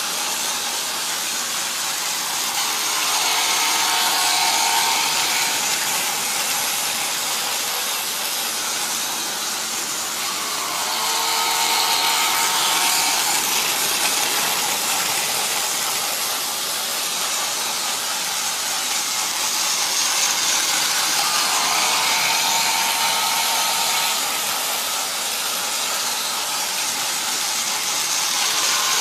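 Battery-powered Tomy Plarail D51 200 toy steam locomotive running on its track, its small motor and plastic gears whirring steadily. About every eight seconds the sound swells and a whine comes up as the train passes close.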